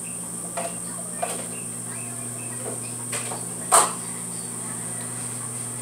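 A toddler eating with her fingers, making a few short mouth clicks and smacks, the loudest about three and a half seconds in. A steady low hum and a constant high whine run underneath.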